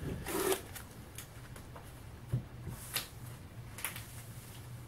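Bagged comic books being picked up and moved off a shelf by hand: a short plastic rustle about half a second in, then several faint taps and clicks as the sleeved comics are handled.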